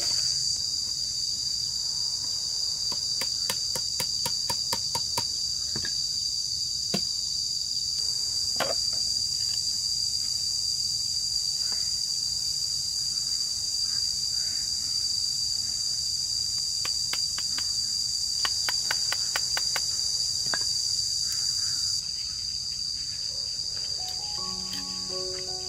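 Steady, high-pitched drone of insects, with runs of quick light clicks and a few knocks as bamboo is handled and cut by hand.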